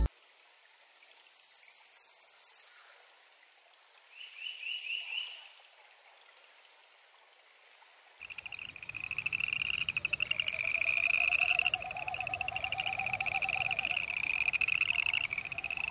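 Frogs calling: a short run of rapid chirps about four seconds in, then from about eight seconds a continuous chorus of fast pulsed trills. A high hissing buzz comes and goes twice.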